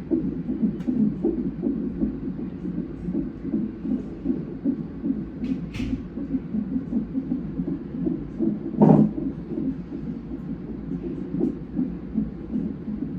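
Fetal heart monitor's Doppler ultrasound sound playing a baby's heartbeat through its speaker as a fast, steady pulsing. A brief scratchy sound comes near six seconds, and a louder thump about nine seconds in.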